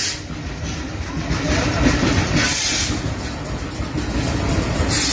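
Train running on the rails with a steady low rumble, broken by two short bursts of hiss: one midway and one near the end.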